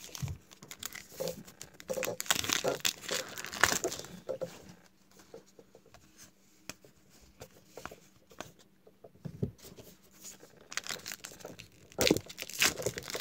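Plastic trading-card pack wrappers crinkling and tearing as packs are opened by hand. The crackling comes in bursts for the first few seconds and again near the end, with a quieter stretch of cards being handled in between.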